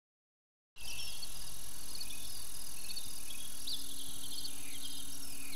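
A chorus of field insects trilling steadily and high-pitched, with short chirps among the trills. It starts after a moment of silence, over a faint steady low hum.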